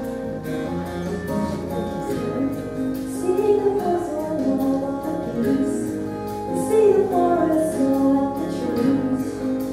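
A woman singing into a hand-held microphone, with long held notes that glide between pitches.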